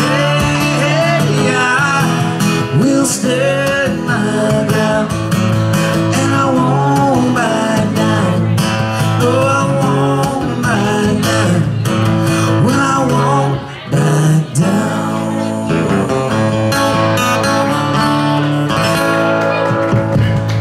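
Acoustic guitar played live, strumming steadily with a short break about fourteen seconds in, and a voice singing over it at times.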